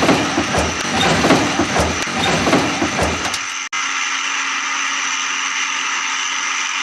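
Vehicle engine running with a low pulse about every half second. After a brief cut-out about three and a half seconds in, it turns into a steady hum.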